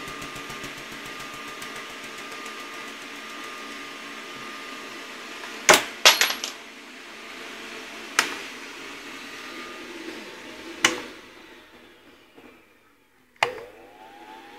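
Vacuum tube Tesla coil rig humming with a steady buzz and a held tone, then a series of sharp clicks with short ringing tails, the loudest pair about six seconds in and others near eight, eleven and thirteen seconds; the hum dies away shortly before the last click.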